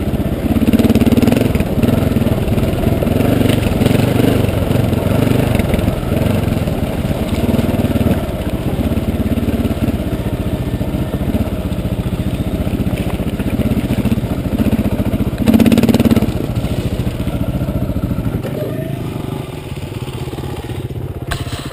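Dirt bike engine running at low speed on a rocky downhill trail, its note wavering with the throttle, and swelling briefly louder about three-quarters of the way through.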